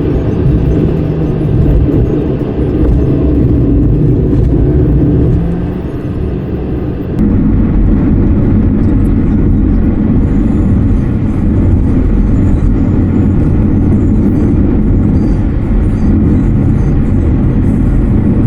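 Steady low rumble of a moving vehicle, changing abruptly about seven seconds in.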